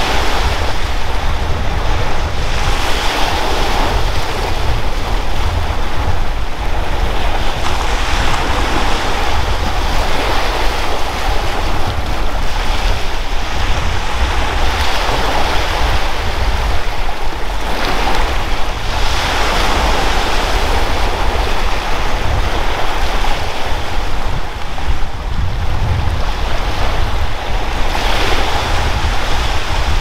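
Sea waves washing onto a shore, surging every few seconds, with wind buffeting the microphone as a steady low rumble underneath.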